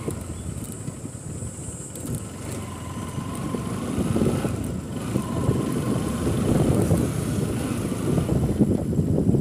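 Bajaj Pulsar NS200 single-cylinder engine running while the bike is ridden over dirt ground, mixed with wind rumble on the microphone. The noise gets louder about halfway through.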